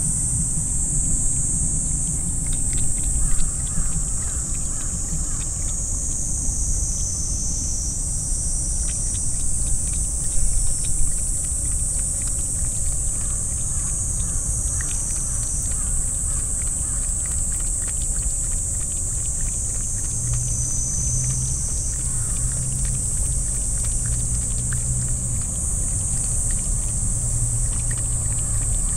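Silver tabby cat lapping water from a fountain pool, with faint quick wet ticks of its tongue. Behind it runs a steady high-pitched buzz and a low rumble.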